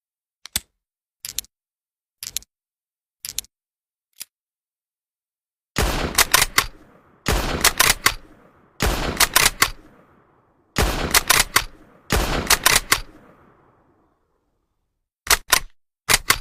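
Krag-Jørgensen bolt-action rifle sound effect: a run of short clicks, then five loud shots about a second and a half apart, each trailing off in a long echo, then two more pairs of clicks near the end.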